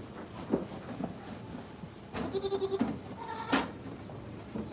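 A young goat kid bleating once, a short wavering call about two seconds in, followed by a single sharp knock.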